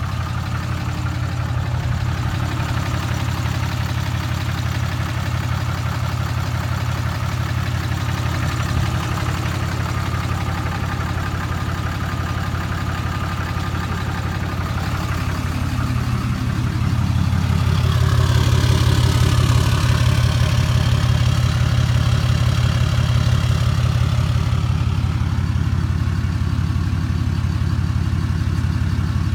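Dodge Ram 3500 pickup's engine idling steadily, heard from beside the truck. It grows louder with more hiss for several seconds past the middle.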